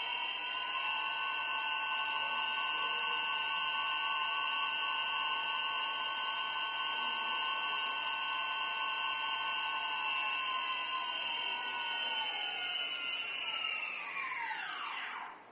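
Four 5008 brushless drone motors, driven by a 4-in-1 ESC with no propellers fitted, run at a steady speed with a high-pitched electric whine made of several tones. About two seconds before the end the whine glides steeply down in pitch as the motors spin down, and it stops just before the end.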